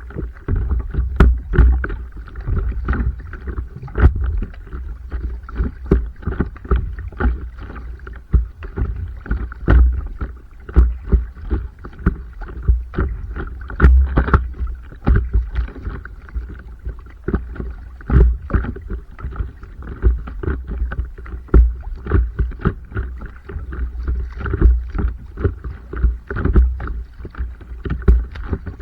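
Stand-up paddleboarding on open water: water splashing and slapping against the board, with frequent irregular knocks and splashes over a steady low rumble.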